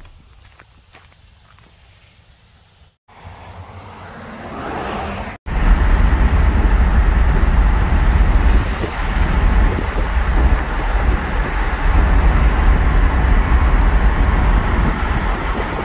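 A few seconds of quiet outdoor air, then, from about five seconds in, the steady loud rumble of a pickup truck driving at road speed, heard from inside the cab: engine, tyre and wind noise.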